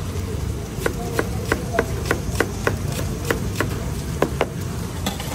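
Knife chopping spring onions on a plastic cutting board: quick, even strokes about three a second, over a steady low rumble.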